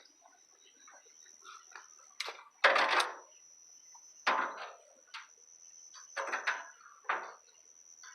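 Scrap being rummaged through and handled: several short clattering, scraping bursts, the loudest about three seconds in. A steady high-pitched tone runs underneath.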